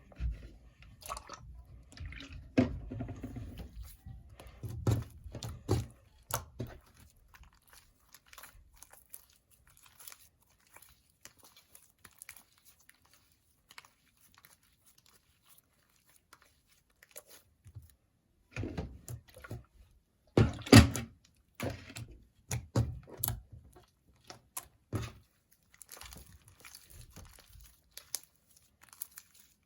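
Sticky slime mixed with Play-Doh being squished and stretched by hand: irregular wet clicks and pops, busy in two spells with a sparser stretch between.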